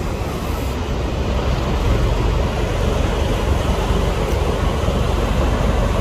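Steady rushing of the Rhine Falls, Europe's largest waterfall: a continuous, loud wash of falling water with a deep rumble underneath.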